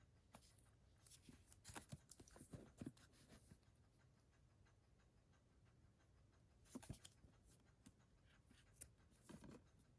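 Near silence, with faint scratchy rustling and a few light taps as the box set is handled, in clusters near the start, about seven seconds in, and near the end.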